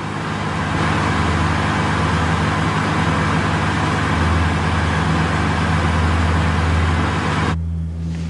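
Car driving: steady road and engine noise that cuts off abruptly about seven and a half seconds in, leaving a low steady hum.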